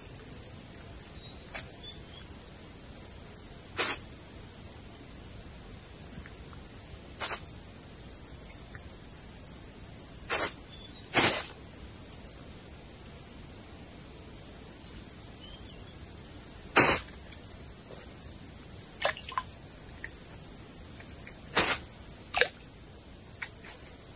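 Steady, high-pitched drone of insects, with a handful of short, sharp clicks scattered through it.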